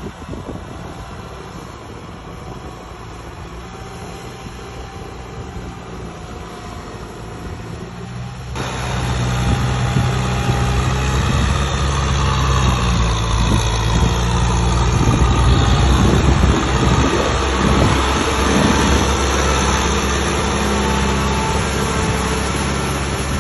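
Heavy machinery diesel engine running steadily, with a sudden jump to much louder about eight seconds in.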